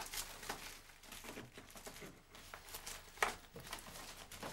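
Rustling and crinkling as things are handled in a wicker basket on a dresser, with a few sharp clicks; the loudest click is about three seconds in.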